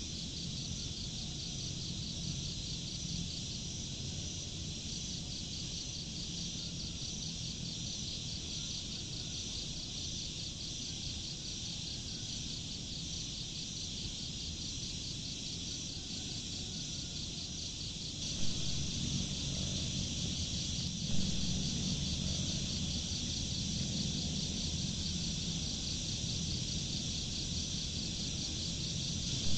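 Insects trilling steadily in a high, fast, even pulse, over a low rumble. The rumble grows louder about two-thirds of the way through, with two brief knocks.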